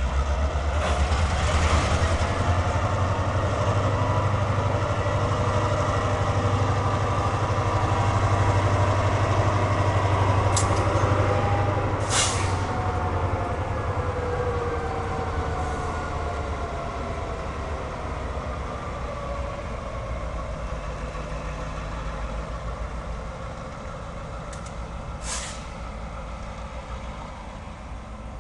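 Norfolk Southern local freight train passing: a diesel locomotive's deep engine rumble, loudest for the first dozen seconds, over steel wheels running on the rails with shifting, sliding tones. A few short sharp sounds stand out, two near the middle and one near the end, as the train fades into the distance.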